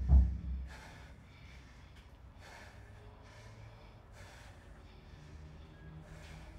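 A few deep low thumps at the very start, then a person breathing hard, with short audible breaths in and out every half second to a second.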